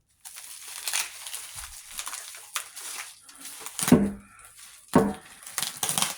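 Packing material being crinkled and torn off by hand during unwrapping: a continuous irregular crackling full of sharp clicks, with two louder thuds about four and five seconds in.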